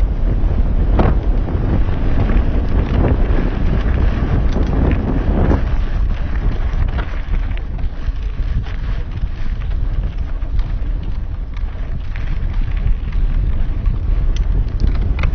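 Wind buffeting a helmet-mounted action camera's microphone while riding a mountain bike, a heavy, steady rumble, with scattered knocks and rattles from the bike and tyres on a dirt trail.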